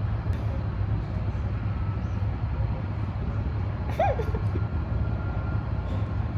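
A steady low rumble with a faint hiss over it, and one short faint squeak about four seconds in.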